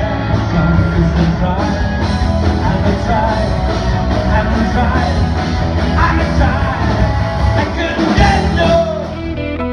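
Live rock band playing: a singer over electric guitars, bass and drums.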